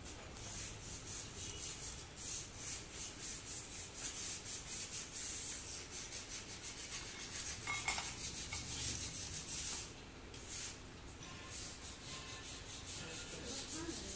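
A ratchet wrench clicking rapidly and rhythmically as bolts in a tractor's planetary gear housing are turned by hand, with a single metal clink about eight seconds in.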